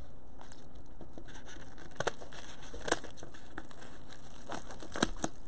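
Scissors cutting into a plastic bubble mailer: a few short, sharp snips and crinkles of the plastic, about two, three and five seconds in, the last the loudest, over a steady faint hiss.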